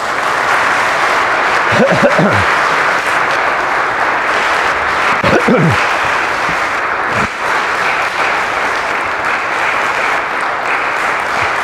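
Congregation applauding steadily throughout, with a brief voice heard twice over the clapping.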